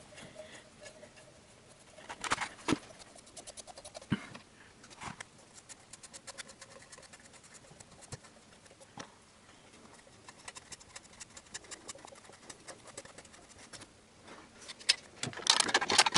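Light metallic clicks and ticks of a wrench and nuts being worked onto the intake manifold studs, with a quicker run of fine ticks past the middle and a louder clatter near the end.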